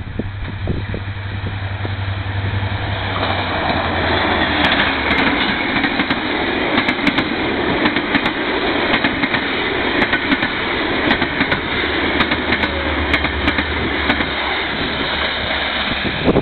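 An EMD GT22CW-2 diesel locomotive, with its two-stroke V12 engine, draws near with a low drone and goes past. Passenger coaches then rumble by, their wheels clicking repeatedly over the rail joints.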